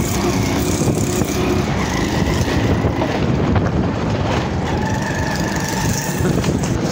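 Motorcycle engine running while the bike rides along, with steady road and wind rumble.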